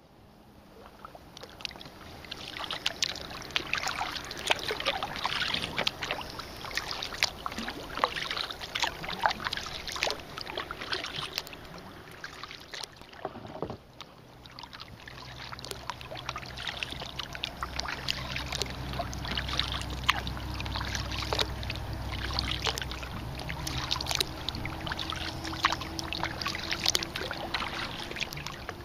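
Kayak paddle strokes: the blades dip and splash, with water dripping and trickling off them in repeated bursts, fading in over the first couple of seconds. About halfway through, a low steady hum joins underneath.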